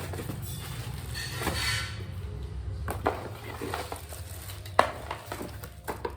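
Handling noise from a cordless phone and its packaging: a rustle about a second in, then a run of sharp clicks and knocks of hard parts being picked up and set down, the loudest nearly five seconds in.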